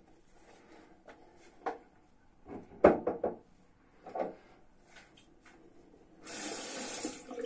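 Knocks and clatters of shaving gear being put down and picked up, loudest in a quick cluster about three seconds in, followed near the end by about a second of hissing rush.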